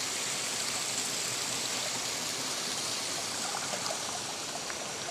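A small rocky stream running, a steady rushing hiss of water over stones.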